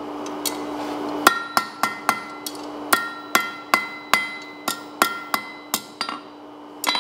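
Hand hammer striking a hot steel rod on an anvil, bending a tool handle to shape: a quick run of more than a dozen blows, two to three a second, starting about a second in, with a last blow near the end. The anvil rings between the blows.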